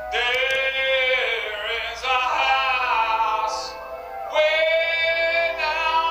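A man singing long held notes into a microphone in a live rock performance, with the band's instruments sustaining underneath.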